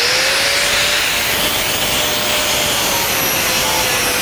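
Angle grinder's disc grinding across the face of a cold-rolled steel sheet to give it a brushed finish: a loud, steady grinding noise over the motor's whine, which settles a little lower in pitch about two and a half seconds in.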